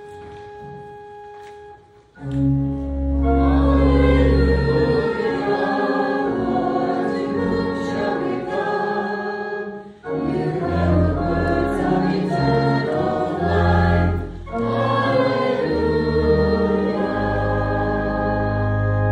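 A congregation singing with organ accompaniment, the Gospel acclamation before the Gospel reading. Soft held organ notes open it. The singing and full organ come in about two seconds in and run in three phrases, with brief breaks about halfway and again about three-quarters of the way through.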